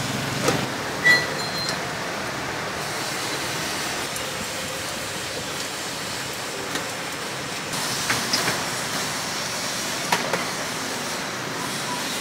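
Steady street noise of road traffic passing, with a few light clicks scattered through it.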